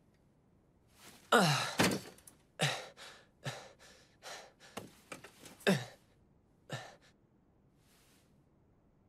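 A boy's voice grunting and exhaling hard with effort, a string of short falling grunts as he pushes through sit-ups on an exercise bench. The first grunt, about a second in, is the longest and loudest; the last comes near the end.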